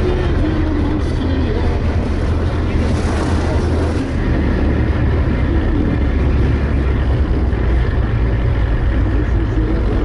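All-terrain vehicle's engine running steadily under way, a loud, deep, continuous drone.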